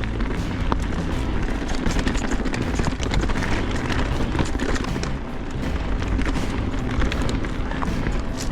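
Mountain bike riding over rough dirt trail: a steady low rumble of wind and tyre noise on the camera mic, with the bike's frequent clicks and rattles over rocks and roots.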